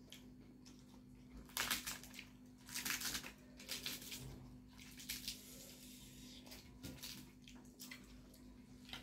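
Eating sounds from people eating rice and fried chicken with their hands: wet chewing and mouth noises in irregular bursts, the two loudest about one and a half and three seconds in. A steady low hum runs underneath.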